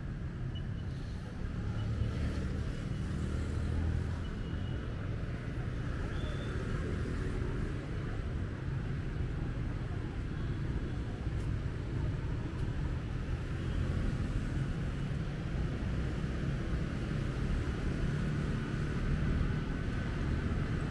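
City street traffic ambience: a steady rumble of passing motor vehicles.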